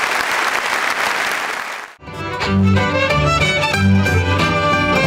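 Audience applauding for about two seconds, then a sudden cut into traditional Québécois folk music: two fiddles playing a lively tune over upright bass and strummed guitar, with a steady bass rhythm.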